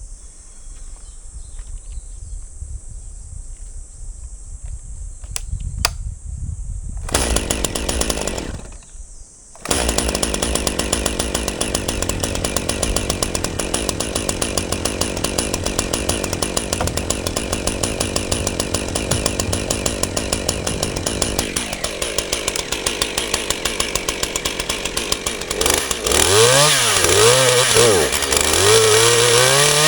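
Two-stroke chainsaw starting about seven seconds in, dropping out briefly, then running steadily at high revs. In the last few seconds its engine pitch swings up and down repeatedly as it bogs and recovers under load cutting through a log.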